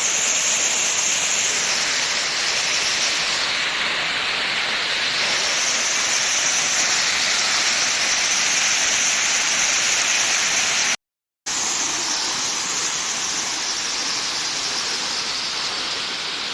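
Waterfall, a loud, steady rush of falling water, broken by a sudden half-second cut to silence about eleven seconds in.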